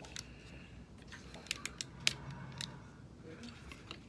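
Plastic Transformers figure parts being handled and snapped together, giving a run of sharp clicks and snaps in the middle.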